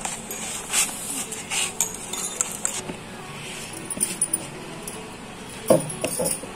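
A hand mixing a dry gram-flour batter with chopped leaves and onion in a stainless steel bowl: rustling and squelching of the mixture with light clinks of metal against the bowl. A short louder sound comes near the end.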